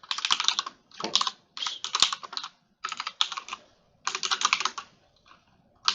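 Typing on a computer keyboard: rapid runs of keystrokes in short bursts with brief pauses between them, going quiet for about a second near the end, as code is entered.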